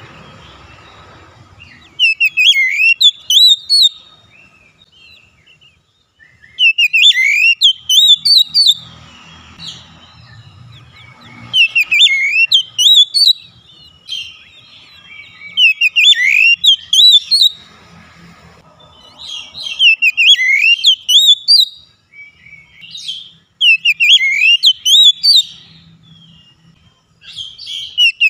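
Oriental magpie-robin (kacer) singing loud phrases of rapid, sharply gliding whistles and chirps, each phrase a second or two long, repeated with short pauses.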